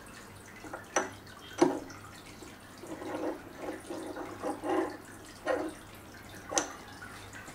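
Cast iron cylinder sleeve being slid by hand onto an aluminium mandrel held in a lathe chuck. Three sharp metallic clinks, about one second in, about a second and a half in and near the end, with a run of short scraping sounds in between as the sleeve is pushed on.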